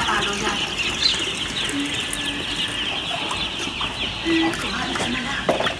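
A large flock of four-day-old broiler chicks peeping continuously, a dense chorus of short, high, falling chirps. A couple of sharp knocks near the end.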